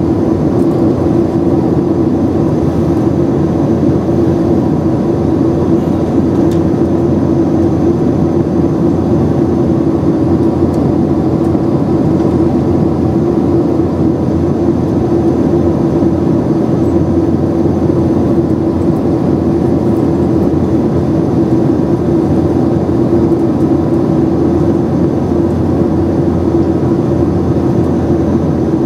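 Steady in-flight cabin noise of a Boeing 767-300ER, heard from a window seat beside the wing-mounted turbofan engine: an even rush of engine and airflow noise with a steady drone running through it, unchanging throughout.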